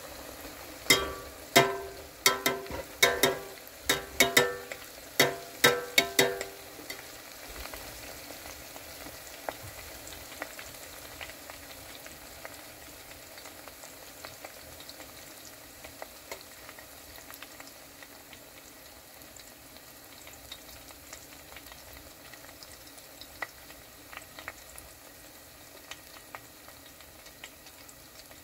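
Pieces of flatbread frying in oil in a stainless steel saucepan, a steady sizzle. In the first six seconds there are about ten sharp, ringing metallic knocks, a utensil striking the pot as the bread is stirred.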